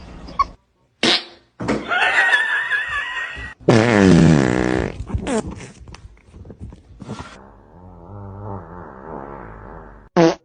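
A run of fart noises. The loudest is a long buzzy one falling in pitch about four seconds in, and a lower, wobbling one follows near the end.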